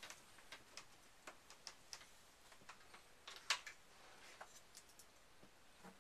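Near silence broken by faint, irregular clicks and light taps, the loudest about halfway through.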